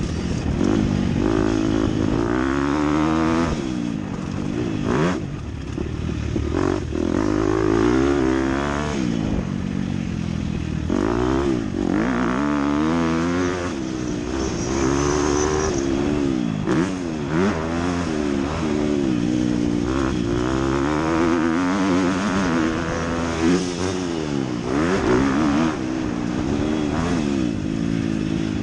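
Motocross dirt bike engine heard from on board, revving up and down over and over as the rider opens and closes the throttle through the track's corners and straights. Occasional short knocks come through over the engine.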